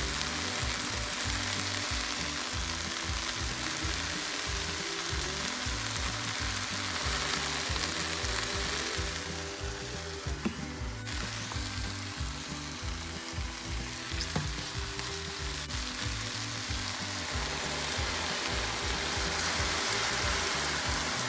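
Sliced eggplant, onion and red pepper sizzling as they fry in a stainless steel pot, with a couple of light clicks part way through.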